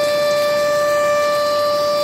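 Dam discharge warning siren sounding one steady, loud held tone: the alarm that water is being released from the dam.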